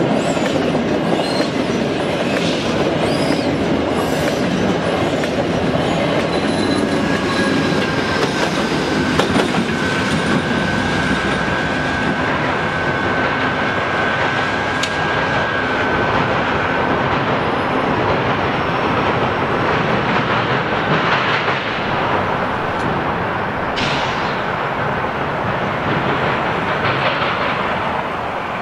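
Amtrak Cascades Talgo passenger train passing at speed, its wheels rolling and clattering on the rails. A thin, steady high-pitched wheel squeal holds for several seconds in the middle. The noise eases a little near the end as the train draws away.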